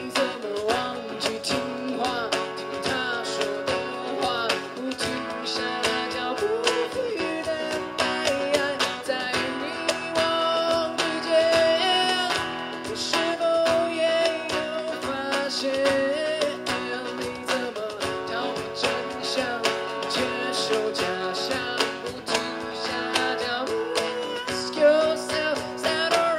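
Live band music in an instrumental passage: a strummed acoustic guitar keeping a steady rhythm under a gliding melodic lead line.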